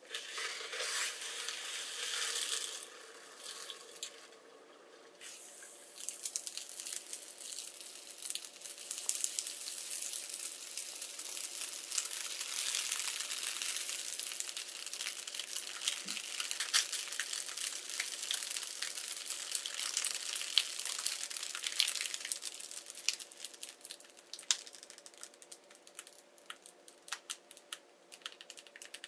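Liquid nitrogen boiling and hissing against a balloon animal dipped into it, with a dense crackling and crinkling of the chilled rubber as the balloon shrivels while the oxygen inside condenses. Near the end the hiss fades and the crackles thin out to scattered clicks as the balloon, lifted out, swells back.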